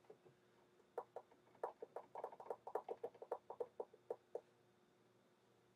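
A quick, irregular run of about twenty light clicks and taps lasting a few seconds, then stopping.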